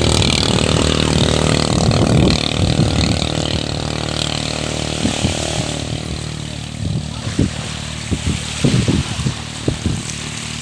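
Engine of a small racing motorboat (bangka) running flat out as it speeds past, a steady high-revving drone. About six seconds in it fades as the boat pulls away, leaving a fainter engine hum and scattered low thumps.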